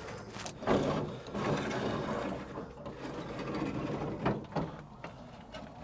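Irregular mechanical clicks, clunks and rattling as the engine's compression release control is worked by hand in an old truck's cab, with no engine running.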